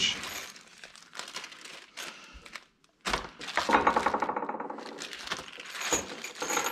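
Plastic bags of small screws and mounting hardware crinkling and rustling as they are handled and opened, with the metal screws clinking inside. It is quieter for the first few seconds and gets louder and busier about halfway through.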